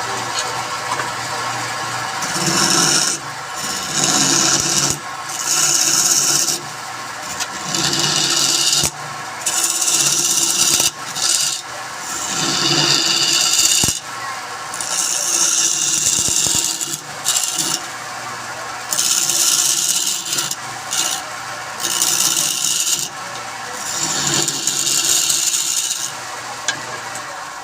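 Wood lathe running with a steady motor hum, while a tool or abrasive is pressed against the spinning wood in repeated passes of about a second each, giving a rasping, rubbing sound.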